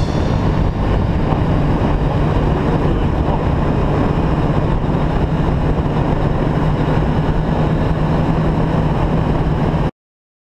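Kawasaki Z800's inline-four engine running steadily at cruising speed, with wind and road noise. The sound cuts off suddenly near the end.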